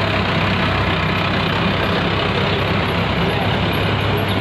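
An engine idling steadily, a continuous low hum under a dense wash of background noise.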